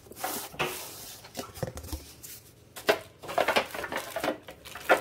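Handling clatter from a new electric indoor grill being unpacked: irregular light clicks and knocks of its metal heating element and parts, with some plastic-wrap rustling.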